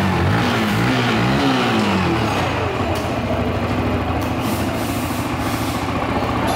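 Yamaha R15 single-cylinder four-stroke engine running after a camshaft and timing-chain repair. It is blipped up and down a few times over the first couple of seconds, then settles to a steady idle. The mechanic puts any remaining slight noise down to the tight, new timing chain and calls the engine sound perfect now.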